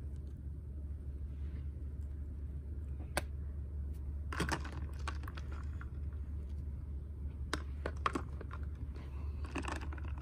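Scattered light clicks and rustles from fingers handling a small plastic toy figure, with a few short flurries of clicks, over a steady low hum.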